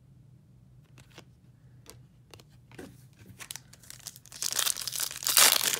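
A few faint ticks of cards being handled. Then, from about three and a half seconds in, a trading-card foil pack wrapper crinkles and tears as it is ripped open, loudest near the end.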